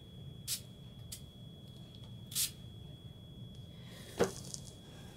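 A few short hisses from a small water mister spraying a marker-inked rubber stamp, the loudest about halfway through, followed by a light click near the end.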